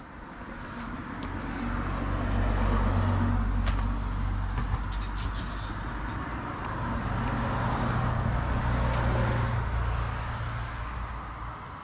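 Motor vehicles driving past, their engine and tyre noise swelling and fading twice.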